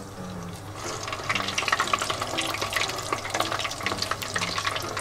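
Once-fried karaage chicken pieces going into hot deep-frying oil for the second fry. The oil starts sizzling and crackling hard about a second in, spitting as moisture that has risen to the surface of the coating boils off.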